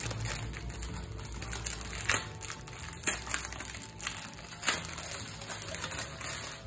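Clear plastic pouch of a crochet hook set being handled and opened: crinkling and rustling, with a few sharp snaps about two, three and nearly five seconds in.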